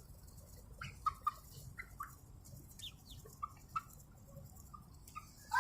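Small chickens making short, scattered clucks and chirps, a dozen or so brief calls.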